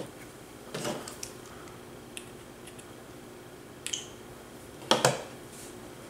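Short plastic clicks and knocks from handling a wheelchair joystick circuit board and plugging its cable connector into the controller. Four separate clicks, the loudest and doubled about five seconds in.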